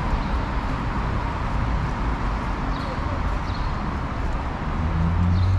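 City street traffic: a steady rumble of vehicles, with one engine growing louder about five seconds in and then rising in pitch as it speeds up. Voices of passers-by are mixed in.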